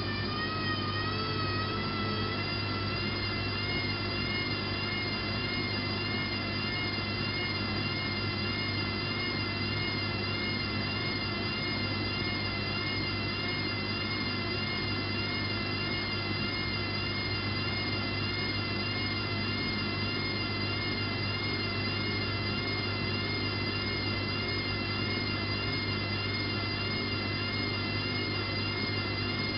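Bosch WFK 2431 washing machine running steadily at speed with its drum spinning: a constant high whine over a low hum. The pitch wavers slightly in the first couple of seconds, then holds.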